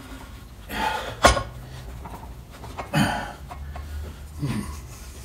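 Metal outboard lower-unit parts being handled and fitted by hand around the drive shaft, with one sharp metallic click about a second in and a few brief scrapes and knocks after it.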